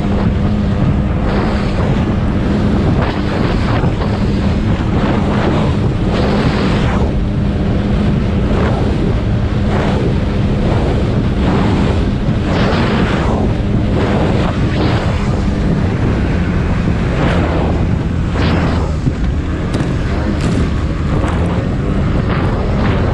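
Racing speedboat's engine running steadily at speed, a constant low drone under heavy wind buffeting on the microphone. The hull slaps through the chop with surges of spray and water rush, irregularly about once a second.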